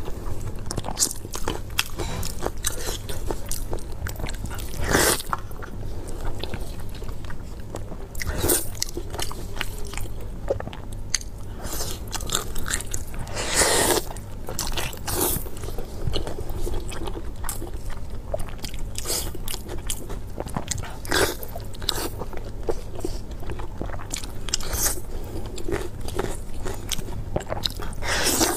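A person biting and chewing soft, fatty braised pork close to the microphone, with irregular sharp smacks, a few of them louder than the rest.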